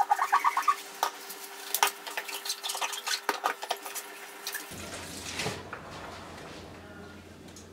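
Glasses and dishes clinking and knocking as they are hand-washed with a soapy sponge at a kitchen sink, with brief glassy ringing near the start. After about five seconds the clatter gives way to quieter scrubbing and splashing of water.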